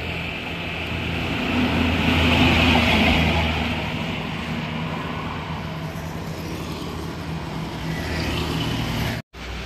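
Heavy diesel cargo truck passing close on the highway. Engine hum and tyre noise swell to a peak about two to three seconds in, then fade as it moves away, with lighter traffic behind. The sound cuts off abruptly near the end.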